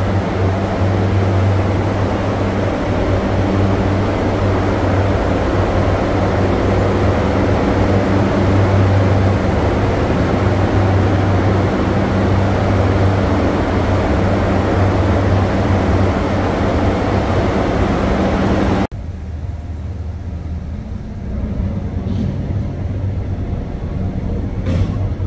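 Steady drone of a paint booth's ventilation fans running, a low hum under a broad rush of moving air. It drops abruptly to a quieter background about 19 seconds in.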